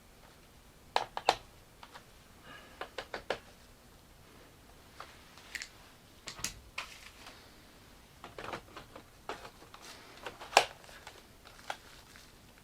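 Irregular plastic clicks and taps: Roomba parts being handled and fitted by hand, with a sharper snap about ten and a half seconds in.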